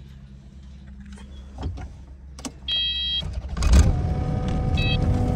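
Compact track loader's diesel engine idling low, then throttled up sharply about two-thirds of the way through to a louder steady run with a steady whine over it. Two short electronic beeps sound, the first just before the throttle-up and the second shorter one after.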